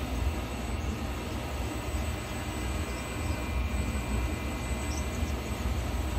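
Syil X7 CNC mill's table being jogged along its axis, the axis drive running as a steady low rumble with a faint hiss over it.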